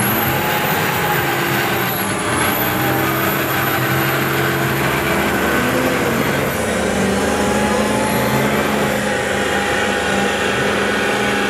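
Lifted diesel pickup revving hard and holding high revs while rolling coal out of its exhaust stacks. Over the engine note a very high whistle holds, dips briefly about two seconds in, drops away a little past halfway, and comes back briefly.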